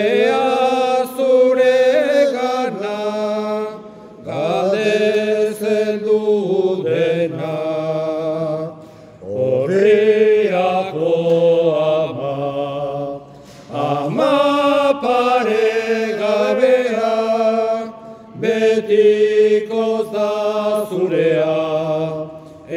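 Men's voices singing a slow Basque hymn together, in sustained phrases broken by short breath pauses every four or five seconds.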